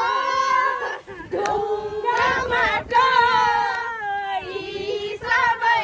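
Singing: high voices holding long, wavering notes, with a few sharp clicks in between.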